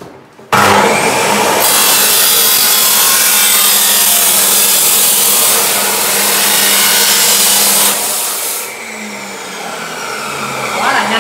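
Dekton DK355 2,800 W cut-off saw with a 355 mm abrasive disc starting abruptly about half a second in, then grinding through square steel tubing. The cut is loudest and harshest from about a second and a half to eight seconds in, after which the cut ends and the motor winds down.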